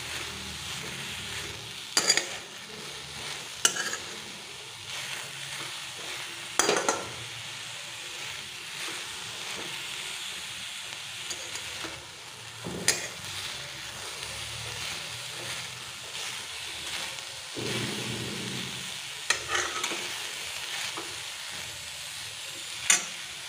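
Boiled sweet corn kernels sizzling in a hot steel kadhai while a metal spatula stirs them, the leftover water cooking off. A sharp clink or scrape of the spatula against the pan now and then.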